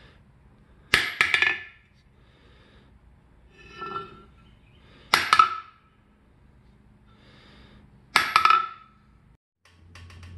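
Steel hammer striking the face of a blacksmith's anvil three times, each blow bouncing in a quick cluster of knocks with a short metallic ring, with a lighter tap between the first two. The anvil's hardened steel face plate has delaminated from the body.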